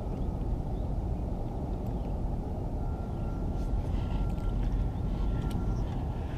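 A steady low rumble throughout. A few light clicks come about midway, as a fishing rod is swung out and cast and its spinning reel is handled.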